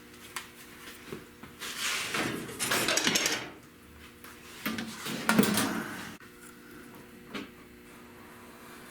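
Sheet metal and hand tools being handled: clattering and scraping in two stretches a couple of seconds long, then a light knock, over a faint steady hum.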